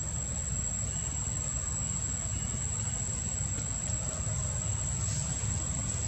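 Steady outdoor background: a constant low rumble with a continuous thin, high-pitched insect drone over it.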